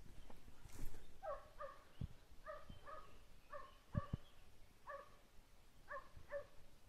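Hunting hound baying on a hare's trail, out of sight: short barks, mostly in pairs, repeated about once a second.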